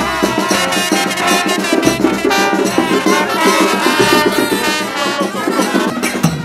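Brass band music: horns playing a lively tune over steady percussion.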